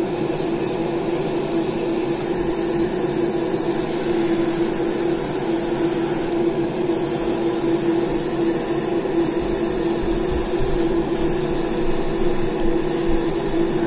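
Spray booth fan running with a steady hum, under the hiss of an airbrush spraying translucent black paint onto a lure; the hiss breaks off briefly a few times.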